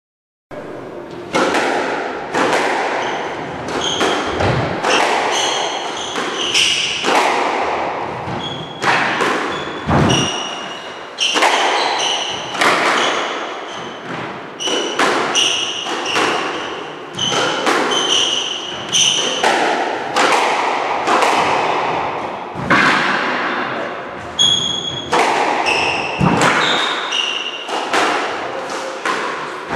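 Squash rally: the ball cracking off rackets and the court walls about once a second, each hit echoing in the enclosed court, with short high squeaks from the players' shoes on the wooden floor between hits.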